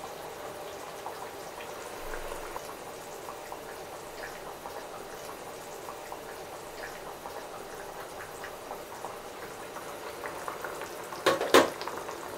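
Water with buckwheat in a frying pan heating toward the boil: a steady bubbling hiss with small pops. Two quick sharp knocks near the end, louder than the bubbling.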